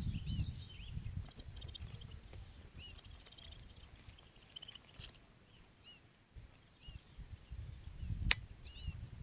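Small wild birds chirping and twittering in short, quick, repeated notes, over a low uneven rumble. A sharp click stands out about eight seconds in.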